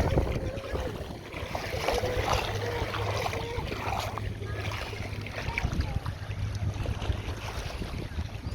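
Boat under way on open water: a steady low motor hum with water noise and wind buffeting the microphone.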